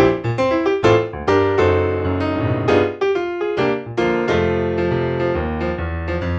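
Sampled keyboard preset from a Kontakt library being played: piano-like struck chords and melody notes over a sustained bass line.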